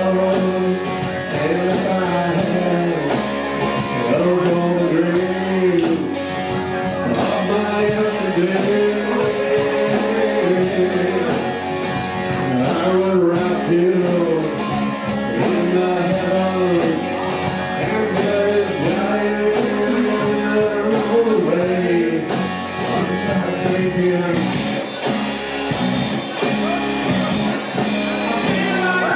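Rock music: a singer over guitar, with drums keeping a steady beat.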